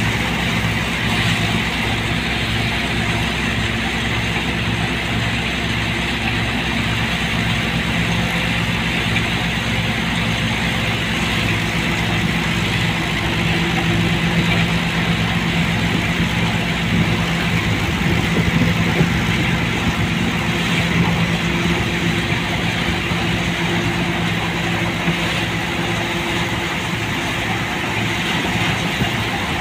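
Tractor diesel engine running steadily at working speed, driving a trailed thresher through the PTO, with the thresher's machinery adding a steady whirring rush.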